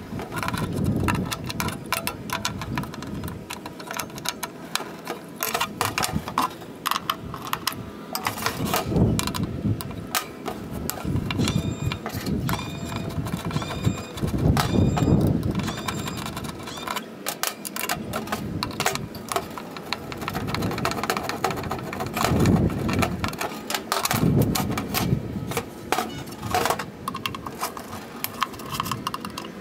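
Irregular metal clinks, knocks and scrapes of hand tools and bolts against the thin stainless steel box of a portable charcoal grill as it is taken apart, with a few short metallic squeaks about halfway through.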